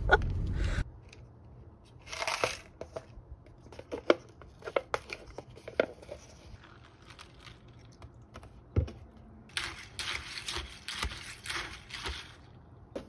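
Foil-paper lid and packaging of a cup cereal being peeled open and crinkled, in short tearing and rustling bursts with light clicks between them and a dense run of crinkling near the end. A car's low interior rumble cuts off within the first second.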